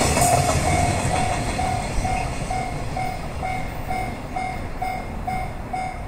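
Japanese level-crossing alarm ringing steadily about twice a second, over the rumble of a container freight train's wagons rolling past and fading as the train moves away.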